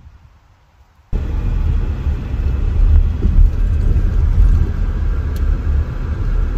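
Quiet for about the first second, then a sudden start of steady low road and engine rumble heard from inside the cabin of a moving car.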